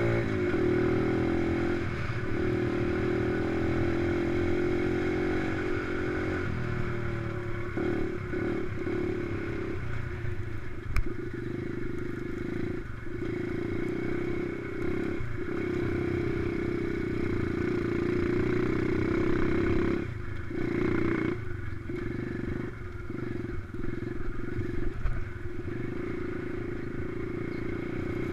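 Dirt bike engine running under throttle across rough ground, its pitch holding and then dipping a dozen or so times as the throttle is rolled off and on and gears change. A single sharp knock comes partway through.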